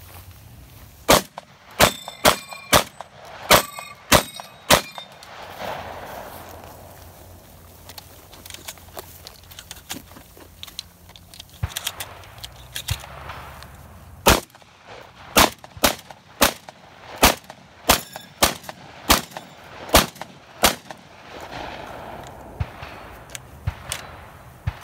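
Shotgun fired in fast strings at steel targets, the steel ringing after the hits: seven shots in the first few seconds, a pause while shells are loaded, then about ten more shots a little over half a second apart, and another loading pause near the end.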